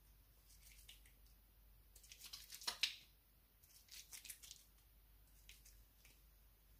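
Faint wet squishing of hands rubbing lathered facial cleanser between the palms, coming in a few short bouts, loudest about two to three seconds in and again around four seconds.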